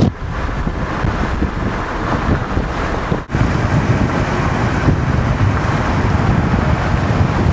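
Wind buffeting the microphone inside a moving car, over the low rumble of the car's road noise. The sound drops out for an instant about three seconds in.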